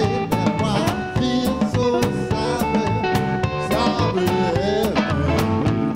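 Live electric blues band playing: a singer's voice over electric guitar with bent notes and a steady drum beat.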